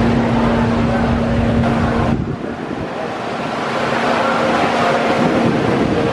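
GCI wooden roller coaster train running along its wooden track, heard as a dense rumble, over a steady hum. The sound drops away suddenly about two seconds in, then builds back up.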